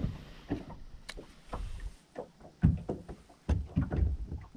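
Small waves slapping irregularly against the hull of a bass boat, a few sharp slaps among softer lapping, with wind gusting on the microphone.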